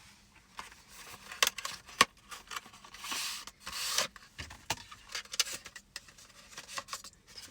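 A phone case being handled and taken out of its packaging: rustling and rubbing with scattered sharp clicks and taps, and a longer rustle about halfway through.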